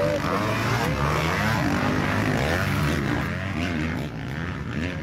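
Several motocross bikes' engines revving at the same time, their overlapping pitches rising and falling as the riders work the throttle.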